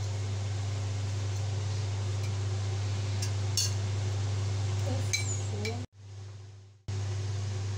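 Steady low electrical hum with an even hiss, typical of a kitchen fan. A few light clinks of kitchenware come a little past the middle. About six seconds in, the sound cuts to near silence for about a second, then the hum returns.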